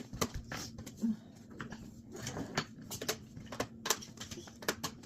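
A series of light clicks and knocks, about a dozen, irregularly spaced, over a faint steady hum.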